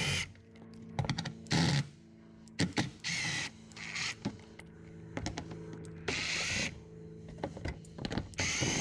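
Milwaukee Fuel cordless driver with a 10 mm socket running in several short bursts, spinning out the bolts that hold a plastic underbody skid plate. A faint steady hum lies underneath.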